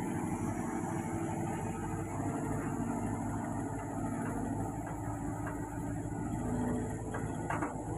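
Hitachi hydraulic excavator's diesel engine running steadily while the boom and arm are moved, with the hydraulic pump's pitch drifting up and down as the arm is lowered.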